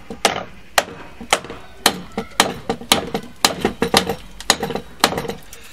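Repeated sharp strikes of a tool on the hard two-pack resin potting of a 110V site transformer, chipping it out. The strikes come evenly, about two a second.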